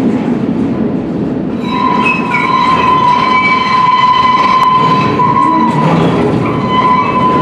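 Underground mine train running on rails through a tunnel: a low rumble, joined about a second and a half in by a steady high-pitched squeal.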